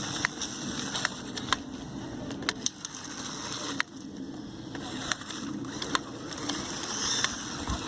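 Lego Technic RC truck driving over rough ground: a steady hum of its hobby-style motor and gearing, with irregular sharp clicks and knocks from the plastic parts and wheels.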